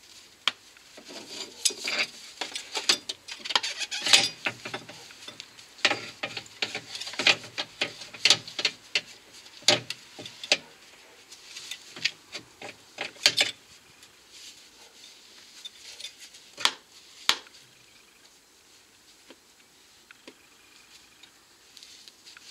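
Metal clinks, knocks and scrapes of a new front lower control arm being handled into place against the subframe. The clatter is dense for the first dozen seconds or so, then thins to two last sharp knocks a few seconds later.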